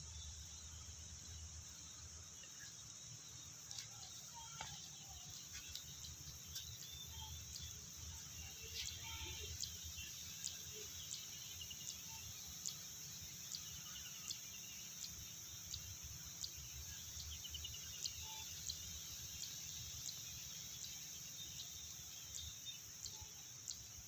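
Steady high-pitched chirring of crickets or other insects, with short sharp ticks about once a second and a few faint bird chirps.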